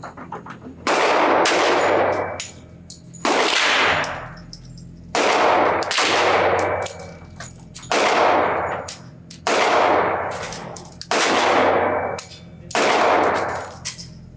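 Seven shots from a Sig Sauer P227 .45 ACP pistol, fired slowly at intervals of about one and a half to two and a half seconds, each followed by a long echo in an indoor range.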